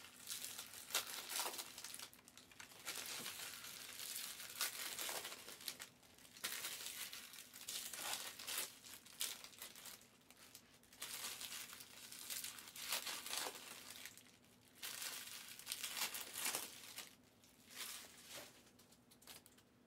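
Foil wrappers of Panini basketball card packs crinkling and tearing as the packs are ripped open and handled, in a run of rustling spells a second or two long with short pauses between.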